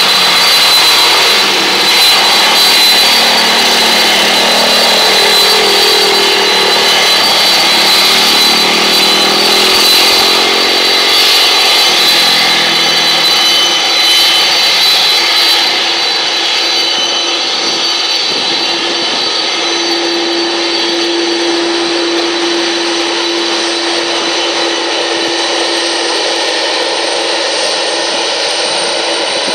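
A Boeing 747-400's General Electric CF6 turbofan engines running as the jet moves slowly along the ground: loud, steady jet noise with high-pitched whining tones on top. A lower tone bends up and down in pitch during the first half.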